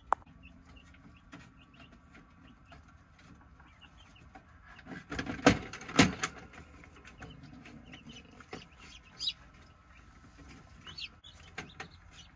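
Newly hatched chicks peeping in short, scattered high calls, with handling rustles and clicks. Two loud sharp knocks come about five and six seconds in.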